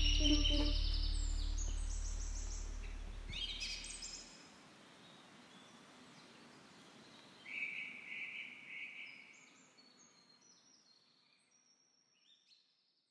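The song's last notes dying away over a low held bass that stops about four seconds in, while birds chirp; the birdsong thins out and fades away.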